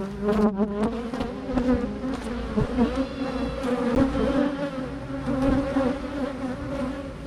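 A swarm of honey bees buzzing loudly in a steady, dense hum, with single bees wavering up and down in pitch as they fly close past. The colony is stirred up by the hive being opened.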